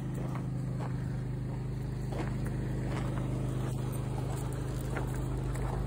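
Steady low mechanical hum of a running motor, with faint crunches of footsteps on gravel.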